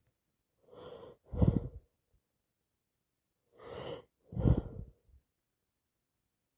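A woman with a head cold sneezing twice, each sneeze led by a short gasping in-breath; the sneezes come about a second and a half in and again about four and a half seconds in.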